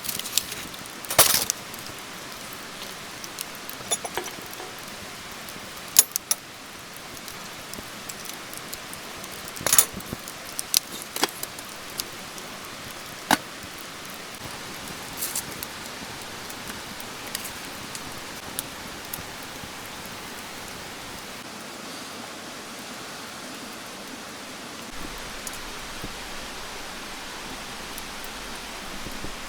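Steady rain falling, a continuous even hiss, with scattered sharp clicks and taps over it, the loudest about a second in and again around six, ten and thirteen seconds.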